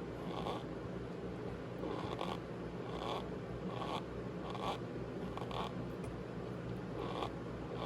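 Cornstarch powder being squeezed and pressed, giving repeated short, squeaky crunches at an irregular pace.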